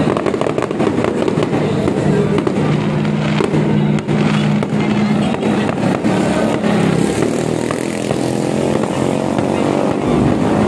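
Aerial fireworks bursting in rapid succession, a dense run of pops and crackles. Music plays along underneath.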